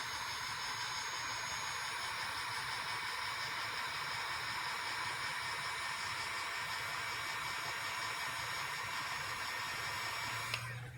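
Hot-air blower running steadily, a hiss of moving air with a faint fan whine, heating the phone's LCD to soften the adhesive under the home button. It switches off shortly before the end.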